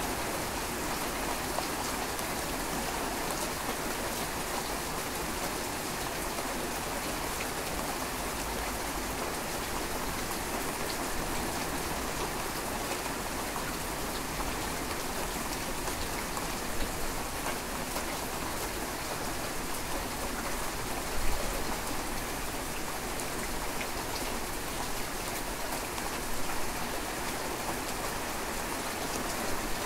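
Steady rainfall, an even, dense patter of drops, with a few sharper louder drop impacts, the loudest about twenty-one seconds in.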